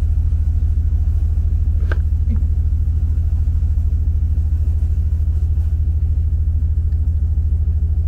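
Steady low rumble of a train in motion, heard from inside the passenger carriage, with a light click about two seconds in.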